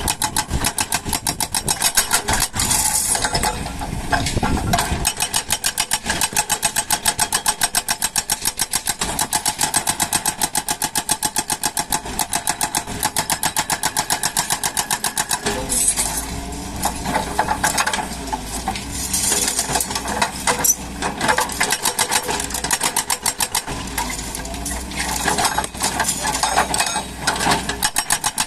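Doosan DX140 excavator's diesel engine running with a fast, even pulse. A deeper hum comes in twice in the second half, as under working load.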